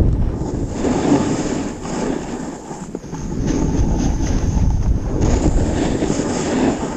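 Wind buffeting a GoPro's microphone while snowboarding downhill, mixed with the board sliding and scraping over groomed snow; the rush swells and eases with the turns.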